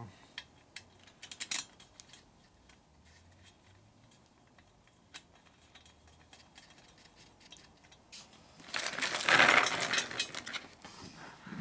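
Stainless steel wheel spokes clicking and jingling against each other and the hub and rim while being laced: a few light clicks at first, then a couple of seconds of busy metallic rattling near the end.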